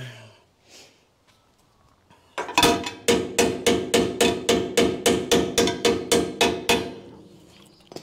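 Hammer tapping a bent steel bracket on a boat trailer back into line: a quick, even run of some eighteen sharp metal-on-metal blows, about four a second, each with a short ring, starting a couple of seconds in and stopping near the end.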